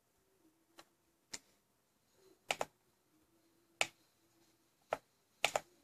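A series of about eight short, sharp clicks from a laptop being operated by hand, some coming in quick pairs.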